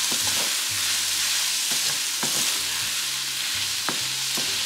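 Ground Italian sausage and minced garlic sizzling in a nonstick pan, stirred with a wooden spatula that scrapes and knocks against the pan several times.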